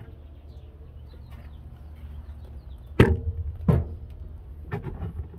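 Handling noise as a phone camera is carried and turned around: a low steady rumble on the microphone, with a few sharp knocks and thumps, the loudest about three seconds in and another soon after.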